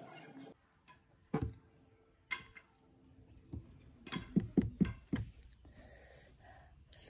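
Metal fork clicking and scraping against a plate as pieces of boiled yam are picked up, with a quick run of louder knocks, followed by soft eating sounds.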